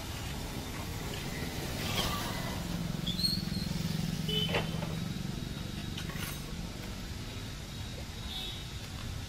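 Street traffic rumbling, with a motor vehicle's engine swelling as it passes between about two and six seconds in, and a few short high chirps over it.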